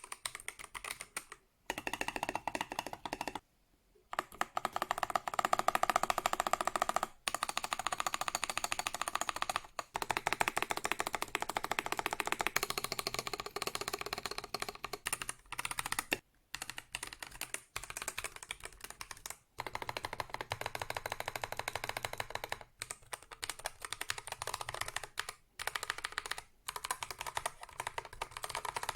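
Fast typing on an Akko World Tour Tokyo R2 3098 mechanical keyboard: a dense run of keystroke clacks, broken by several short pauses.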